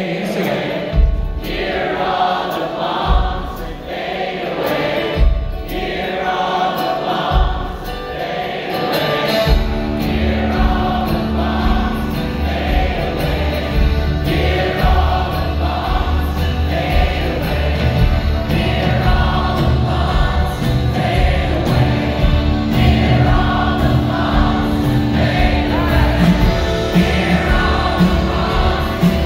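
Live band music: many voices singing a refrain together over acoustic guitar, upright bass and drums. About ten seconds in, the bass and drums fill out and the music gets fuller.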